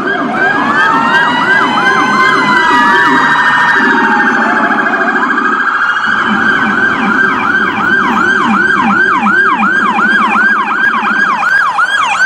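Electronic emergency-vehicle siren, loud and cycling through tones. In the first few seconds several slow wailing glides overlap with quicker yelps. From about six seconds in it settles into a fast falling sweep repeating about two and a half times a second.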